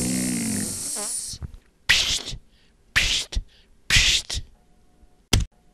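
Cartoon sound effects: a long wavering sound that stops about a second and a half in, then three short hissing bursts from a snake about a second apart, and a single sharp knock near the end.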